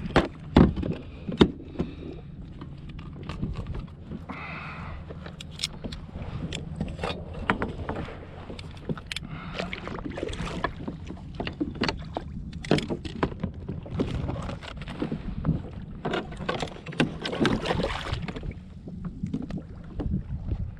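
Irregular knocks and clicks of fishing gear being handled on a plastic kayak, over a steady low hum.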